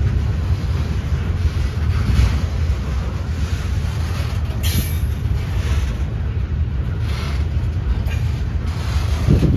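Freight train of high-cube boxcars rolling past close by: a steady low rumble of steel wheels on rail, with a few clacks, the sharpest about halfway through.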